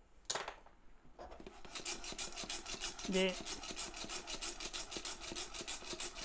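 Coffee beans sliding and rattling inside a lidded saucepan as it is shaken rapidly back and forth during pan roasting, a fast, even rhythm of swishes starting about a second in after a single knock. The beans are at about 180 °C, still short of first crack.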